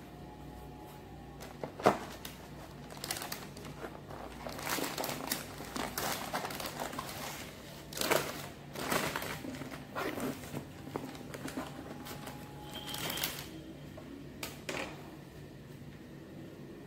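Baking paper rustling and crinkling in irregular strokes as it is handled and smoothed over a bamboo rolling mat, with one sharp knock about two seconds in.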